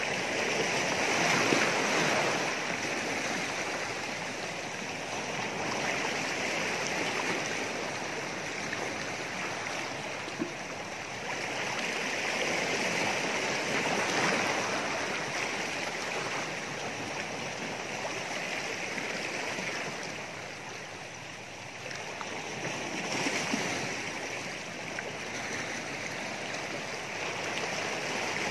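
Small sea waves washing and splashing against shoreline rocks: a continuous rush of water that swells louder every several seconds as a wave surges in, then ebbs.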